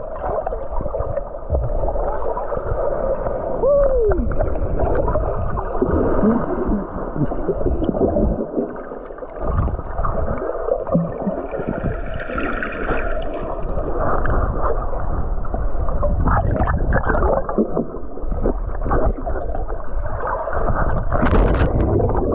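Muffled sloshing and gurgling of sea water close around the camera in the surf, with a few short gliding tones.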